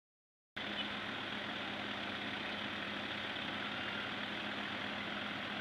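Heavy vehicle engine running steadily with a constant low hum. It cuts in after a brief silence about half a second in.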